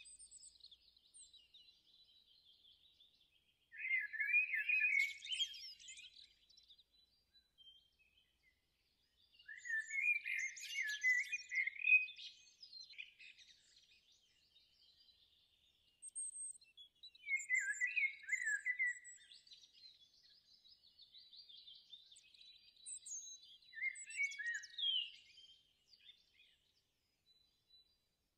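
Small songbird chirping and singing in phrases a few seconds apart, with quick high trills in between.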